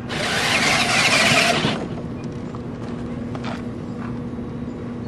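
Excavator robot's electric drive motors running as it moves, a loud rough whir for nearly two seconds that then stops, over a steady low hum.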